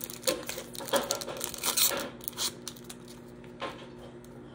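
Foil wrapper of a Pokémon card booster pack crinkling and tearing as it is opened. A quick run of sharp crackles thins out a little past halfway.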